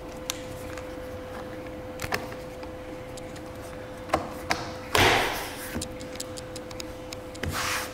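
Hand work at a car door: a few light clicks and taps, then a short loud hiss about five seconds in, the loudest sound. Cloth rubbing strokes start near the end, all over a steady faint hum.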